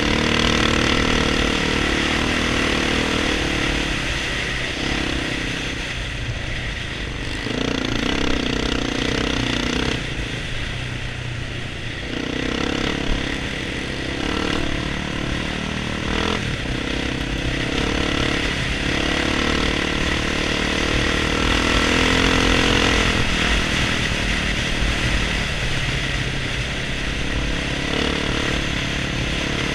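1997 Honda XR400's air-cooled single-cylinder four-stroke engine running under way, its note rising and falling every few seconds as the rider works the throttle, over a steady hiss.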